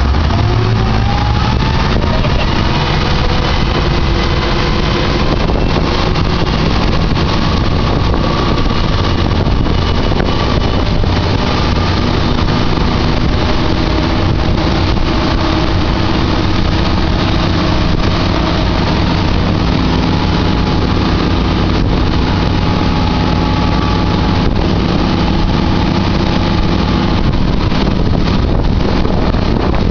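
Twin Volvo Penta KAD43P-A marine diesel engines pulling hard as the boat accelerates for a hole shot. The engine note climbs over the first two seconds, then holds steady at high power.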